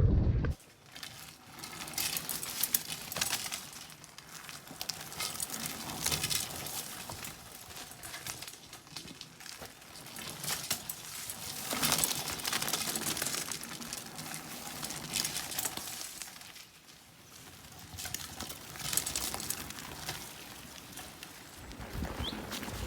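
Road bike riding over a gravel forest trail: tyres crunching, with constant small rattles and clicks from the bike, rising and easing as the surface changes.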